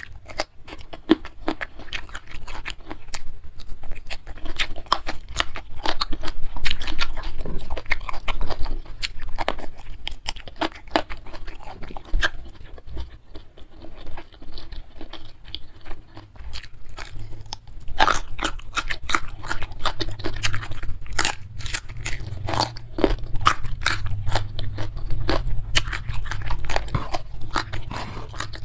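Close-miked chewing and crunching as spicy beef balado with rice, petai stink beans and young jengkol are eaten by hand, with many wet mouth clicks throughout.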